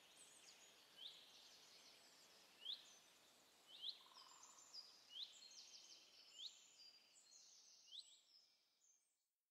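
Faint birdsong ambience: short rising chirps about once a second with higher twittering notes, fading out near the end.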